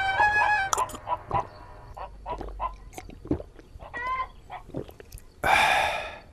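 Background music that stops about a second in, followed by a string of short, scattered calls and clicks, and a louder noisy burst near the end.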